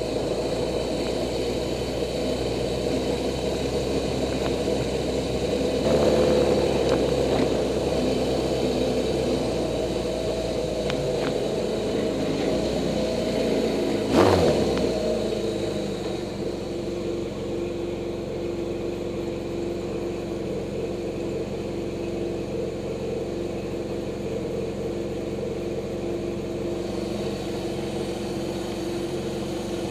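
Suzuki GS850's inline-four engine running as the motorcycle is ridden, with a steady multi-toned engine note. It gets louder about six seconds in, and a brief loud whoosh comes about halfway through, after which it runs a little quieter.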